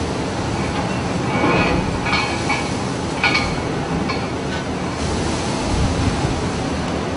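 Stormy sea: heavy waves breaking and spray hitting, over a steady, loud rush of wind, with several short louder splashes.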